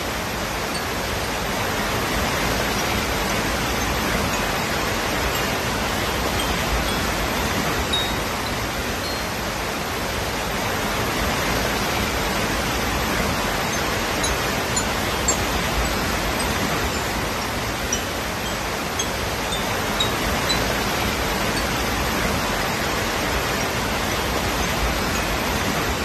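Waterfall: a steady, even rush of water cascading over rocks, with faint brief high tinkles scattered here and there.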